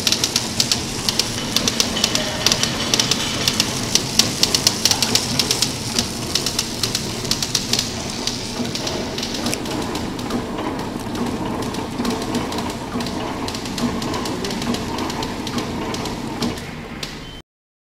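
Horizontal flow-wrap packaging machine running, a fast, continuous clatter of clicks over a steady mechanical hum. The clicking is sharpest in the first half, and the sound cuts off suddenly near the end.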